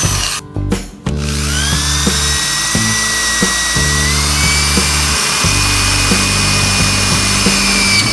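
Background music with a steady beat, over a handheld power tool running with a high whine. The tool cuts out briefly about half a second in, then spins back up, its whine rising and then holding steady.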